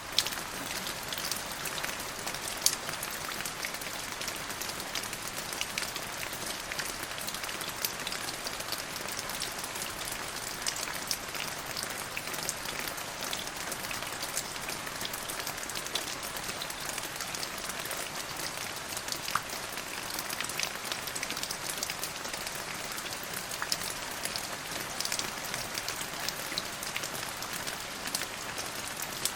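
Steady rain falling, an even hiss with many individual drops ticking on a surface and a few sharper, louder drop hits.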